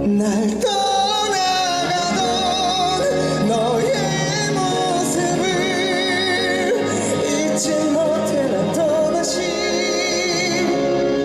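Live pop ballad performance: sustained sung notes with wide vibrato over full band accompaniment.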